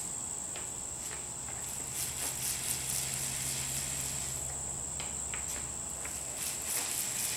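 Paint roller working DuraTex roller-grade textured coating onto a speaker cabinet in light passes: a faint sticky rolling sound with a few light clicks, under a steady high-pitched whine.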